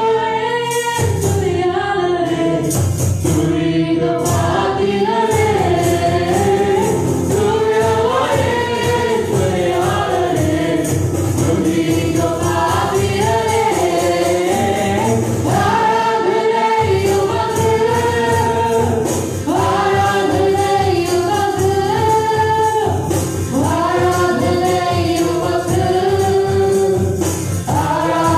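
Live Tamil Christian worship song: a woman leads the singing, joined by backing voices, over acoustic guitar and a steady percussion beat.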